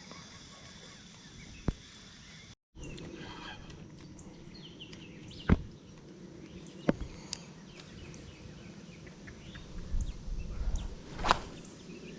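Outdoor pond-side ambience with faint bird chirps and a few sharp, isolated clicks and knocks; the loudest knock comes near the end, after a short stretch of low rumbling.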